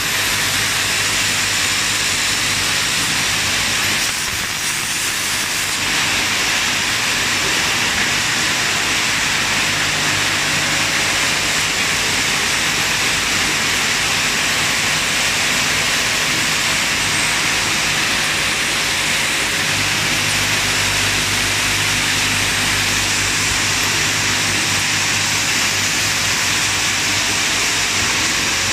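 Automatic lotion pump assembly machine running, with its vibratory bowl feeders and pneumatic stations: a steady, dense hiss over a low, even hum.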